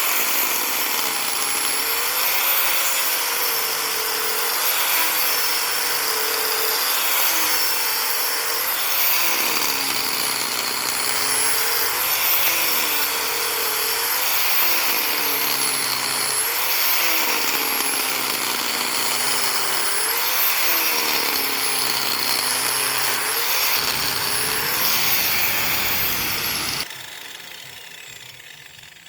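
Electric power tool running hard, its pitch dipping and recovering about every two seconds as it is loaded, then stopping abruptly near the end.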